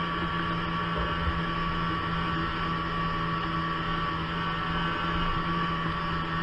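Snowmobile engine running at a steady cruising speed: an even, muffled drone with no change in pitch, heard through a waterproof camera housing.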